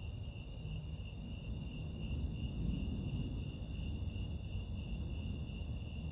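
Crickets chirping steadily in a continuous high trill, over a low rumbling noise that swells slightly a couple of seconds in.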